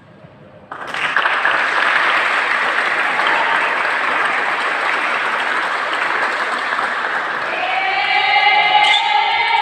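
Applause from a volleyball crowd that breaks out suddenly about a second in and carries on steadily. Near the end, held pitched tones that rise slightly join the clapping.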